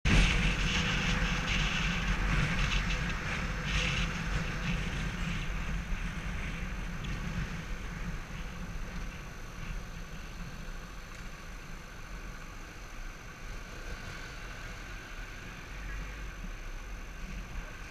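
Motorcycle riding noise picked up by a camera on a moving bike: a steady engine drone with wind rumble on the microphone, slowly getting quieter over the first half.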